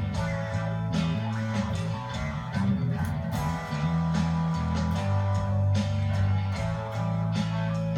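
Guitar jamming over a slow psychedelic blues backing track in E Dorian, with a sustained bass line and steady drum hits underneath.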